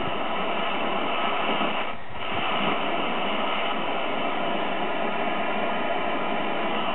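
Steady static hiss from the speaker of a 1960 Philco Briefcase 19 portable tube television, its sound section working but with no signal connected. The hiss dips briefly about two seconds in.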